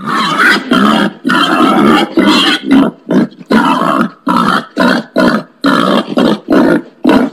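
Wild boar giving a rapid series of loud, rough grunting calls, about two a second, some running together.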